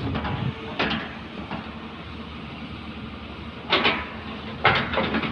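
Excavator running steadily, with three short, loud, harsh scraping noises from its working gear: one about a second in and two near the end.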